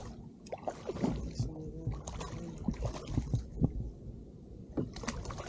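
Water lapping against a kayak hull, with scattered small knocks and clicks from handling gear on board.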